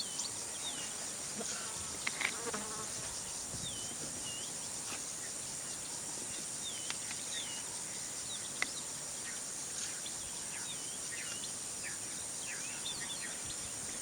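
Steady high-pitched drone of an insect chorus in the bush, with scattered short chirps and a few sharp clicks over it.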